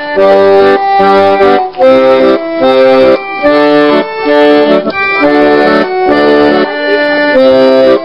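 Accordion playing a tune of held notes and chords that change about twice a second, with short breaks between them.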